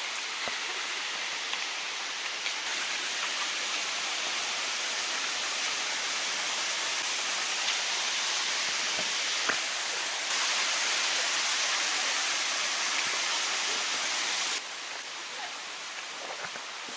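Steady rushing water of a mountain stream and waterfall, a bright, even hiss. It jumps louder about ten seconds in and drops suddenly near the end.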